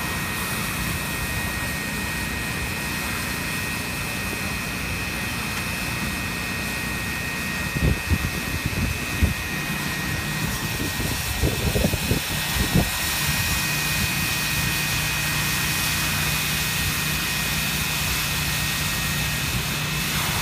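Automatic hot-air roofing welder running as it heat-welds a TPO membrane seam: a steady blower hiss with two constant high-pitched whines over a low hum. A few brief, irregular low bumps come about midway.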